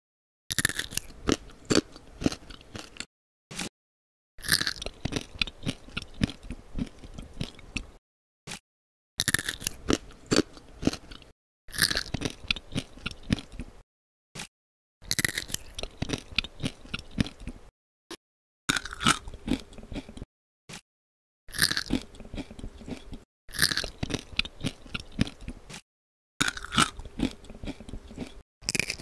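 Crunchy biting and chewing of candied fruit skewers (tanghulu, sugar-glazed strawberries and grapes), in about nine separate bursts of a couple of seconds each, every one opening with a sharp bite, with dead silence in between.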